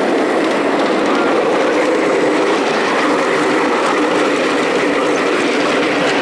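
Ride-on miniature railway train running along its track: a steady rolling rumble of small wheels on the rails.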